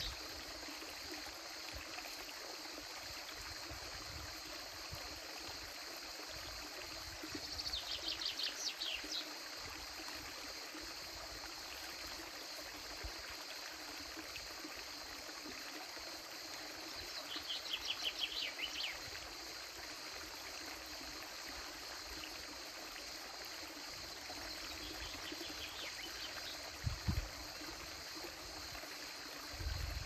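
Steady trickle of a shallow creek running over rocks, with bursts of rapid, high chirping trills about every ten seconds and a brief low thump near the end.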